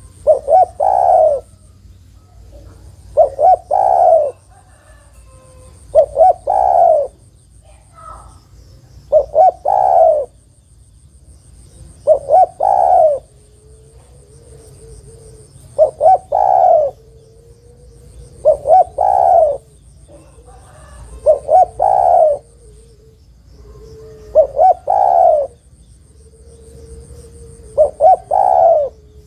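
Spotted dove cooing: a phrase about every three seconds, each made of a couple of short notes running into a longer coo. It is given as a female's call to males, used as a lure to set male spotted doves calling.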